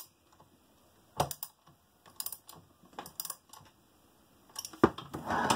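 Socket ratchet clicking in short bursts as a bolt is tightened, then, near the end, the mechanism of a Chinese hand-crank leather sewing machine clattering steadily as it is turned over by hand, spinning freely.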